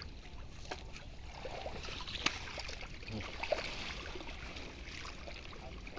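Pond water sloshing and trickling, with a single sharp tap about two seconds in.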